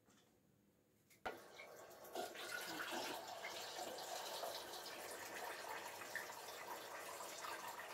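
Kitchen tap running steadily into a small steel pot as it fills with water, starting after a sharp click about a second in.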